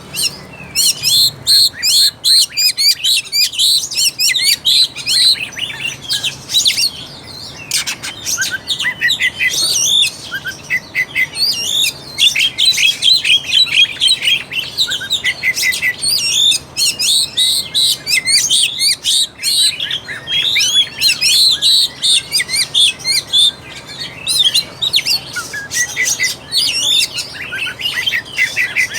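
Oriental magpie-robin (kacer) singing loudly and continuously: a rapid, varied stream of whistled phrases mixed with short clicking notes. It is the full, aggressive kind of song used as a lure to stir a male kacer into singing and fighting.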